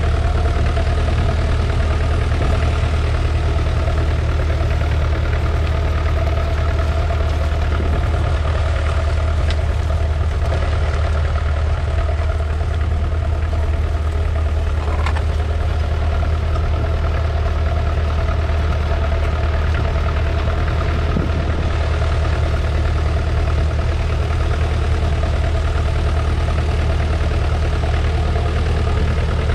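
1969 McCormick 434's 2.5-litre four-cylinder diesel engine running at a steady, unchanging speed, a low, even drone.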